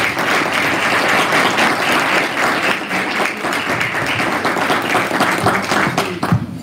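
Audience applauding, with many hands clapping at once, tailing off near the end.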